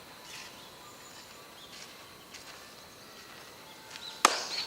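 Quiet outdoor background, then a little over four seconds in a single sharp crack with a brief ringing tail: a baseball impact.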